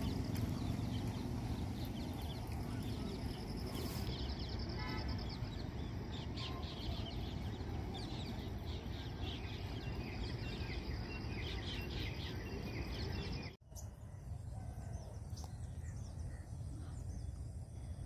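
Outdoor ambience of birds chirping over a steady low rumble, with a thin steady high tone behind the calls. About thirteen and a half seconds in it cuts abruptly to a quieter ambience with a few more calls.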